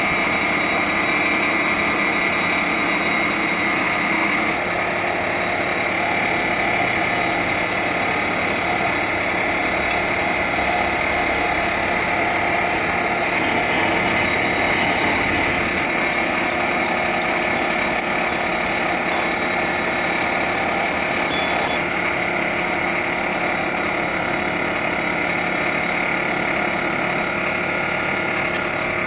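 Steady drone of running machinery, with a few constant high tones and no strikes or clanks.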